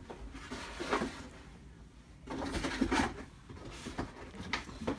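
Handling noises on a desk: two stretches of rustling and scraping, then a few light knocks near the end.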